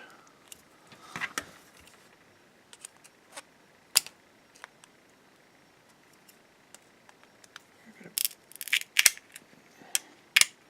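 Small plastic and metal parts of a bike computer handled during a teardown: scattered sharp clicks and taps, with a quick cluster of them about eight to ten seconds in.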